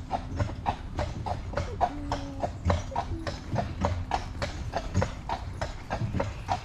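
Carriage horse's hooves clip-clopping at a walk while pulling a carriage, an even rhythm of roughly four hoof strikes a second.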